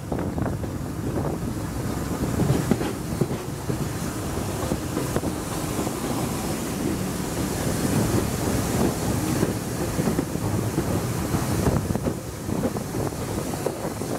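Steam-hauled train running along the line, heard from a carriage window just behind the locomotive, with heavy wind buffeting the microphone.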